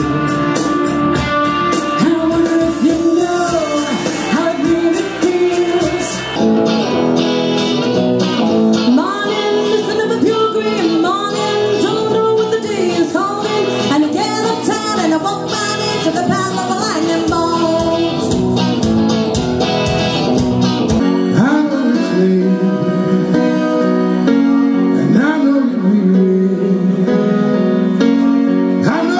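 Solo singers performing songs into a microphone over instrumental accompaniment with guitar, the music changing abruptly a couple of times as one act gives way to the next. Women's voices, with a man singing near the end.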